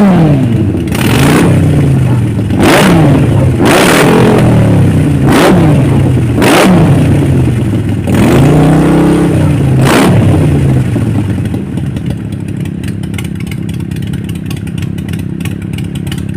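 Motorcycle engine revved with a series of quick throttle blips, about seven, each rising and falling in pitch. It then settles to a steady idle for the last five seconds.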